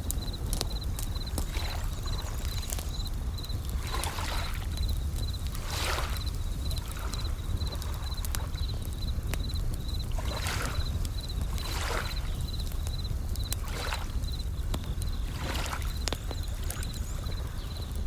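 Layered nature ambience: waves washing in irregular swells over a steady low rumble, a campfire crackling with scattered sharp pops, and a bell cricket (suzumushi) chirping in an even, repeating high pulse.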